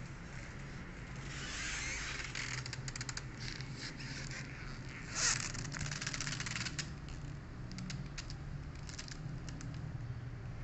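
Scattered light clicks and scrapes over a steady low hum, with one short, loud hiss-like burst about five seconds in.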